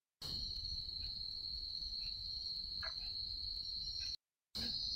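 A steady high-pitched tone or trill over faint low background noise, with a few faint ticks. The sound cuts out completely for a moment at the start and again about four seconds in.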